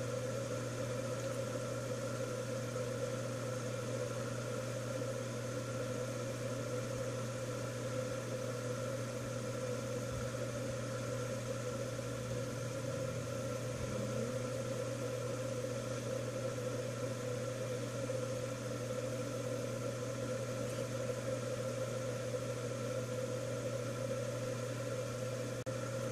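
Steady mechanical hum with a constant low drone and a few fixed tones, level and unchanging throughout.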